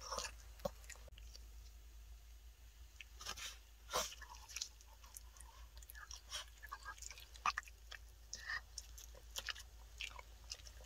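Miniature Pinscher chomping and crunching a homemade stick-shaped dog treat: irregular small crunches and chewing clicks, a little louder about four seconds in.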